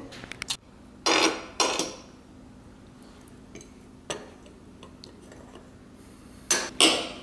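Metal fork and knife clinking and scraping against ceramic plates and a sauce dish, in several separate short knocks.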